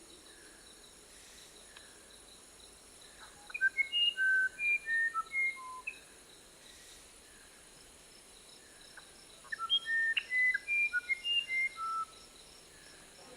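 A songbird singing two short phrases of quick, clear whistled notes that jump between pitches, with a pause of a few seconds between the phrases, over a faint steady hiss.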